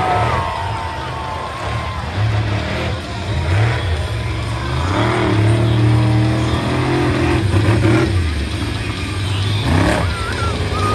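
Monster truck engine revving, its pitch rising and falling repeatedly.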